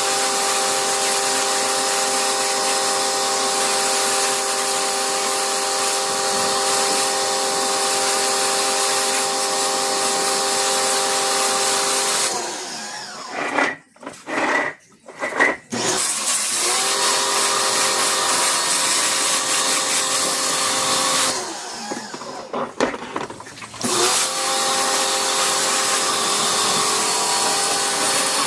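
Small electric motor of a power tool running at a steady speed with a hiss. It stops twice, a few knocks sound in the pauses, and it quickly spins back up each time.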